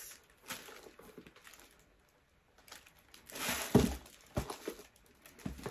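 Handling noise from a pair of white lace-up boots being lifted and moved about: scattered light knocks and rustling, with the loudest burst of rustling a little past halfway.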